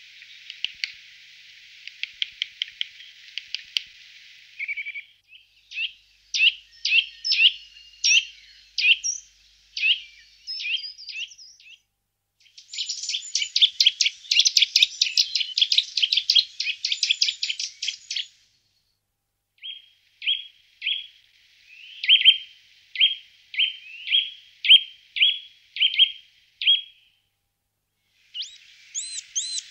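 Eurasian nuthatch singing in several bouts with short breaks: fast trills of rapid repeated notes, and near the end a slower series of about a dozen separate notes.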